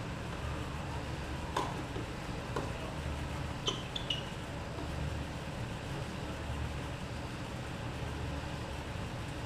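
A few faint, distant pops of tennis balls being struck with rackets, about a second apart, over a steady low outdoor rumble. Near four seconds in there are two brief high squeaks.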